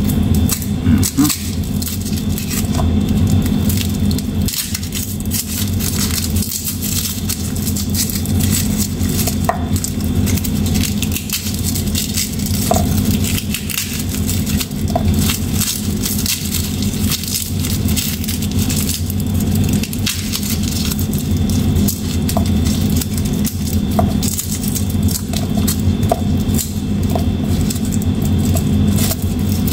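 Garlic bulb being broken apart into cloves by hand: the dry papery skins crackle and rustle in many small, quick snaps. A steady low hum runs underneath.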